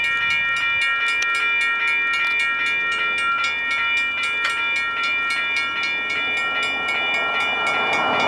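Grade-crossing electronic bell (WCH Type 3) starts up suddenly and rings steadily in rapid repeated dings as the crossing activates. Near the end, the noise of the approaching freight train grows beneath it.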